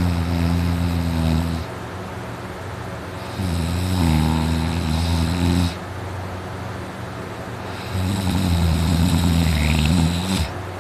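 A man snoring deeply in his sleep: three loud snores, each about two seconds long and roughly four seconds apart, with a steady background noise between them.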